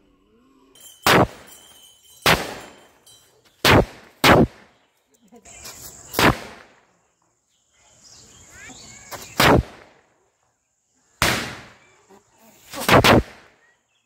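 Small firecrackers going off one after another, about eight sharp bangs at uneven intervals of one to two seconds, each fading quickly. They are being ignited electrically through a remote-controlled relay board rather than lit by hand.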